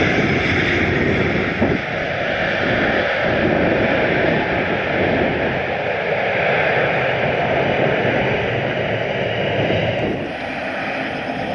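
A steady rushing roar of a landing airliner's engines mixed with heavy wind noise on the microphone, the level dipping slightly about ten seconds in.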